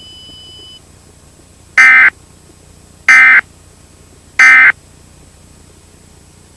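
Emergency Alert System end-of-message data tones: three short, loud bursts of buzzing digital data about 1.3 seconds apart, over a low steady hiss.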